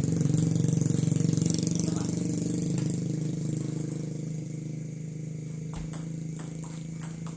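Steady drone of an idling engine, with the sharp clicks of a table tennis ball striking bats and table in a rally, clearest over the last couple of seconds.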